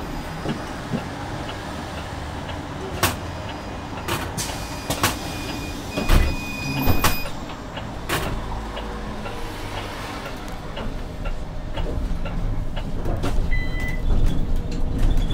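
Inside a Zhongtong LCK6113SHEVG hybrid city bus on the move: a steady low rumble from the drivetrain and road, with sharp knocks and rattles from the cabin. There are a couple of short beeps, and the rumble grows louder in the last few seconds.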